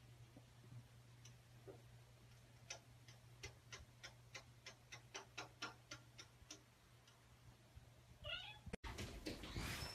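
A cat's paws and claws tapping against window glass: a run of faint quick clicks, about four a second, over a faint low hum. Near the end comes a short wavering cat cry, then the sound cuts off abruptly and a louder rushing noise begins.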